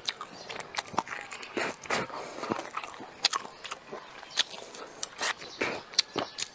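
A person chewing a mouthful of rice with pickled long beans close to a clip-on microphone: irregular sharp wet clicks and smacks of the mouth, several a second.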